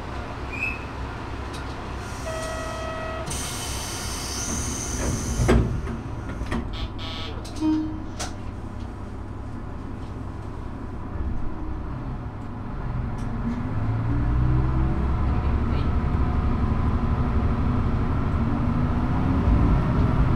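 Diesel railcar idling at a station stop. A short buzzer tone sounds, then a burst of air hiss and a thump as the doors close. From about twelve seconds in, the engine revs up in rising pitch and grows louder as the railcar pulls away.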